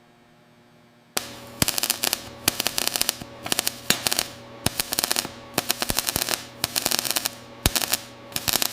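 Power tool working rusted steel: rapid rattling impacts in repeated bursts over a steady machine hum, starting about a second in.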